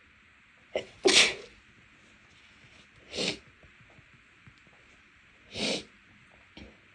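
A person's stifled sneezes, three of them about two seconds apart, the first the loudest and led by a short sharp catch of breath.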